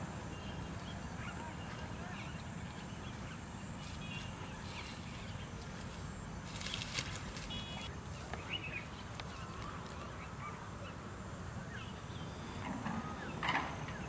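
Rural outdoor ambience: a steady low rumble with scattered short bird chirps, and brief scratchy bursts about seven seconds in and again near the end.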